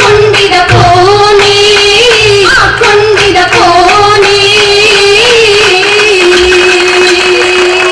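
Female voices singing an Oppana song (Mappila song) over a rhythmic clapped beat. Near the end the beat stops and the singing settles on one long held note, closing the piece.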